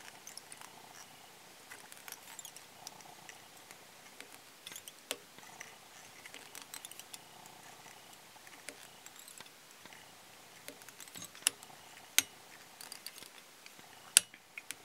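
Faint scratchy ticks and rustles of fly-tying thread being wrapped around a polypropylene yarn post on the hook, with three sharp clicks near the end.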